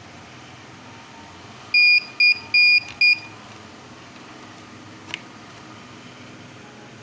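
Electronic beeper sounding four short high beeps in quick succession, the third a little longer, followed about two seconds later by a single sharp click.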